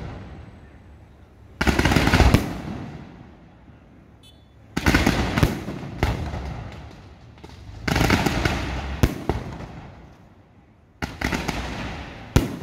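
Fireworks display firing in volleys: four salvos about three seconds apart, each a rapid string of bangs and crackles that fades away over a second or two.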